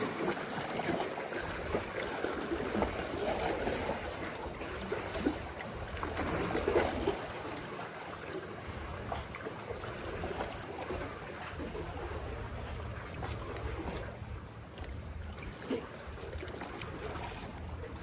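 Sea water sloshing and trickling among the concrete tetrapod blocks of a breakwater, a steady wash with small splashes, over a low rumble.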